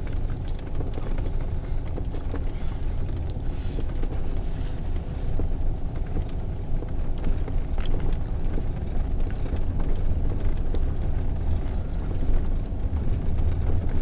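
Car driving along a paving-stone road, heard from inside the cabin: a steady low rumble from the engine and tyres, with many small scattered rattles and clicks.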